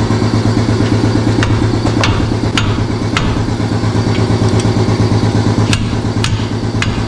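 A heavy hammer striking metal: seven sharp blows about half a second apart, four and then three, over the steady drone of a running air compressor.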